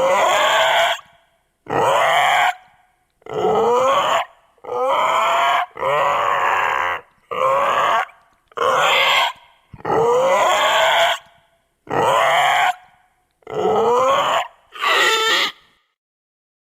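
Edited baby dinosaur creature calls: a string of about ten cries, each around a second long with short silences between them. Many of the cries rise in pitch as they go, and the calls stop near the end.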